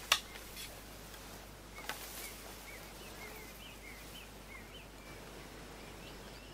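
A sharp knock just after the start and a smaller one about two seconds in, then a bird calling a run of short, high chirps, about three a second, for around three seconds.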